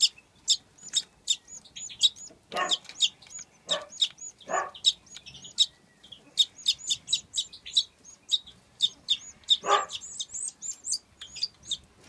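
Parrot crossbills calling in a rapid run of short, high chirps, several a second, with a few brief pauses.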